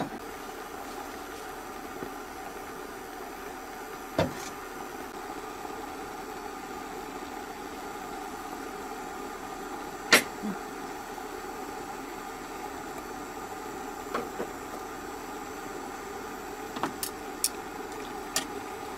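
Steady mechanical hum with a few sharp clinks, the loudest about ten seconds in.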